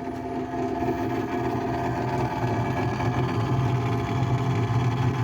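Samsung RS50N3513WW fridge freezer's fan rattling loudly and steadily, a dense mechanical buzz. The owner's account is that ice builds up behind the freezer walls and expands them so the fan rattles, which an engineer judged a manufacturing fault.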